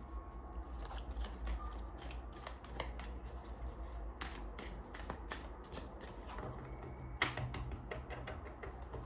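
Tarot cards being shuffled and handled by hand: irregular soft clicks and rustles, with one sharper card snap about seven seconds in.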